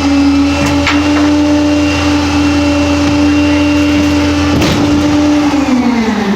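CCC garbage truck with a 25-yard Pak-Mor rear-loader body, its engine held at raised revs, then winding down near the end. A few sharp clanks sound over it.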